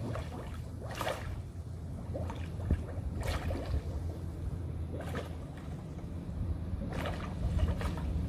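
Muffled underwater sound in a swimming pool: a steady low rumble with short bubbling rushes about every two seconds, from scuba divers exhaling through their regulators.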